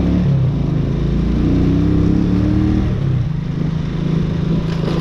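Italika FT 125 motorcycle's single-cylinder four-stroke engine running under way. It revs up with a slightly rising pitch, then eases off about three seconds in.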